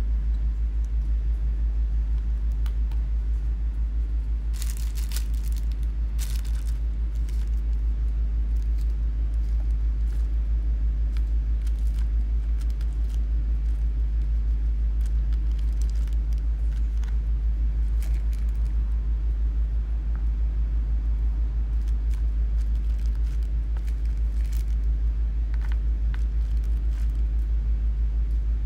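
Steady low hum, with a few sharp clicks and light taps scattered through it, the loudest about five and six seconds in.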